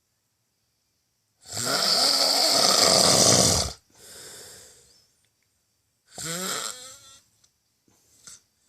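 A person snoring loudly. One long snore lasts over two seconds and is followed by a softer breath out. After a pause comes a shorter snore about six seconds in, and a faint one near the end.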